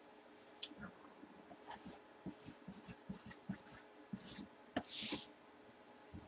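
Marker pen writing on a cardboard box: a quick run of short scratchy strokes as a name is written out, with a few light clicks.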